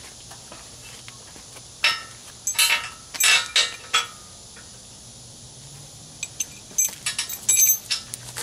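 Metal clinking and knocking in two bursts of short strikes, about two seconds in and again near the end: bolts and hand tools handled against a steel bumper as it is bolted on.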